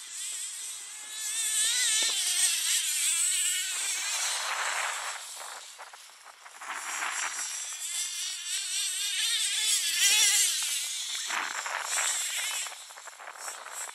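Hot Bodies Lightning GTX2's twin .26 nitro engines running at high revs as the RC car drives across grass, the pitch climbing and dropping as the throttle is worked. It grows loud, fades about six seconds in as the car moves away, then comes back loud.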